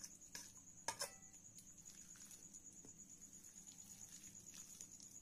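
Faint mashing of boiled potatoes with a metal potato masher in a plastic bowl: a few light clicks and taps, the loudest just under a second in, then near silence with a faint steady high whine.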